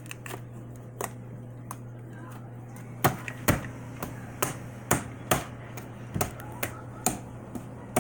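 Hands slapping and pressing soft butter slime against a placemat on a counter: a series of sharp slaps, about two or three a second, starting about three seconds in, with a few lighter clicks before them. A steady low hum runs underneath.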